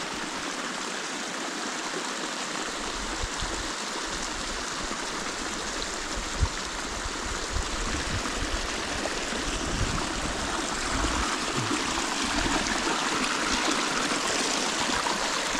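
Water of a stream rushing steadily over rocks, growing a little louder in the second half, with a few soft low thumps.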